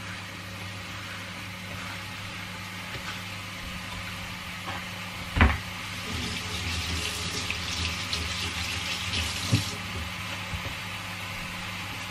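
Kitchen tap running into the sink for about four seconds, then shut off suddenly, after a loud knock about five seconds in. A steady low hum runs underneath.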